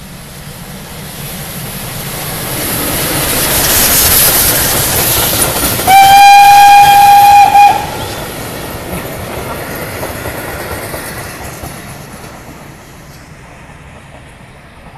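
FS Gr 685 steam locomotive and its coaches passing: the rushing rail noise builds as it nears, and the steam whistle sounds one loud, steady note for about two seconds near the middle. Then the coaches roll past and the sound fades away.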